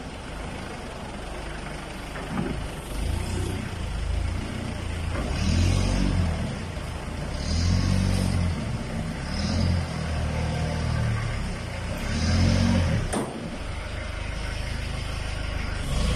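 Wontonne diesel forklift engine running and revving up and down about every two to three seconds as the truck is driven into a shipping container. A single sharp knock is heard near the end.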